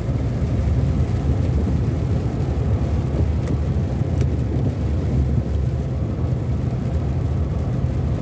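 Steady low rumble of tyres and engine heard inside a car's cabin, driving at speed on a wet highway. A couple of faint ticks come around the middle as the windshield wiper sweeps.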